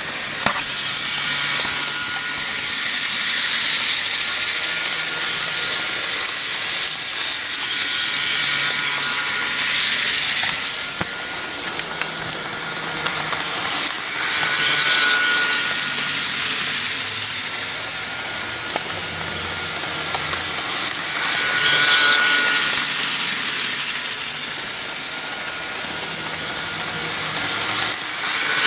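Bachmann HO-scale Santa Fe EMD F7 locomotive running around its track, its small motor and gears whirring with a light mechanical rattle. The sound swells each time the train passes close, about every seven seconds.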